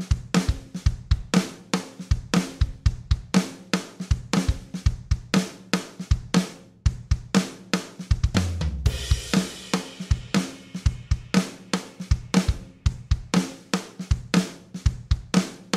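Background music with a steady drum beat of about four hits a second, broken about eight and a half seconds in by a long cymbal wash over a low boom.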